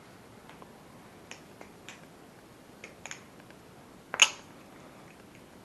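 BBBarfly Firefly balisong being handled: several light metal clicks of its channel handles, then one sharp, louder click about four seconds in.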